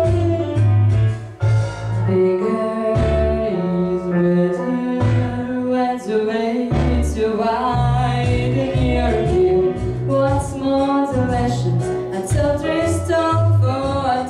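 A woman singing a song from a musical over instrumental accompaniment with a steady bass line. Her sung melody moves from note to note throughout.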